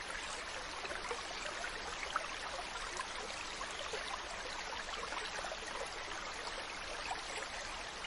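Large waterfall's water rushing steadily, an even, unbroken noise.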